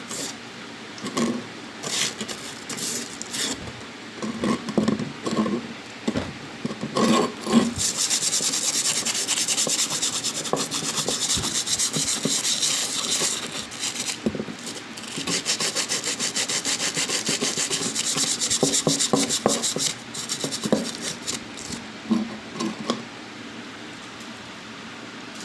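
A hand tool rasping back and forth in quick, even strokes across wood or metal, in two long runs of several seconds each. Scattered knocks and scrapes of handling come before and after the runs.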